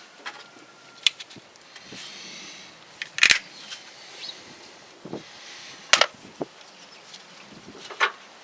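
Four sharp knocks or clicks, roughly two seconds apart, over steady wind noise.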